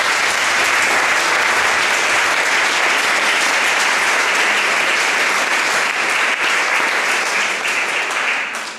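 Audience applauding steadily, a dense patter of many hands clapping that dies away near the end.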